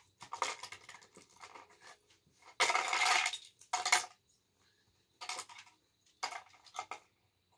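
Plastic Lego bricks clicking and clattering as they are handled and pressed onto a baseplate, in separate short bursts, the loudest a longer rattle about three seconds in.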